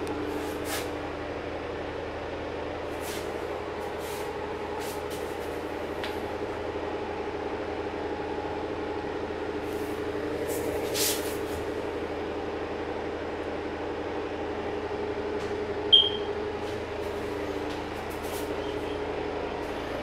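Steady mechanical hum with a few held tones, with scattered light clicks and knocks, a brief louder swell about 11 seconds in and one short high chirp about 16 seconds in.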